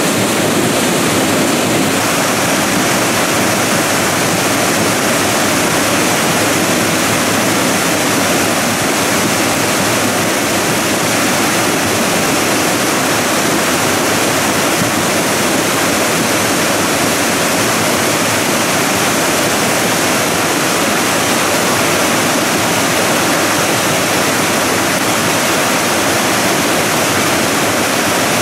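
Steady, loud rushing of a debris-flow torrent: muddy water laden with sediment and stones pouring down a channel.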